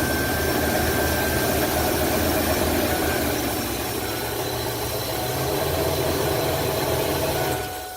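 Ford E-450 RV engine idling steadily right after a cold start, running on its newly installed EGR valve. It is shut off near the end and the sound dies away.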